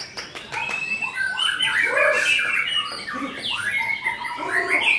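White-rumped shama singing a fast, unbroken run of varied whistles, rising and falling sweeps and rasping notes.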